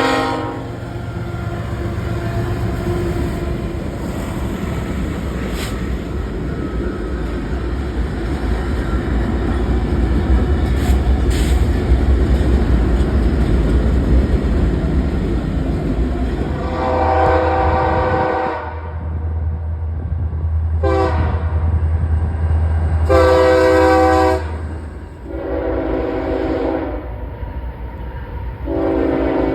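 Train passing a grade crossing: a steady low rumble with occasional wheel clacks, then the locomotive's air horn sounding its chord in a series of blasts, one short and the others long, as a crossing warning, with a low drone under the later blasts.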